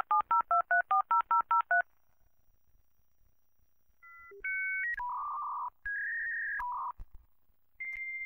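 Telephone sound effect: about ten quick touch-tone key presses dialing a number, then a pause of about two seconds. A series of electronic line tones and beeps follows, settling into a steady high tone near the end.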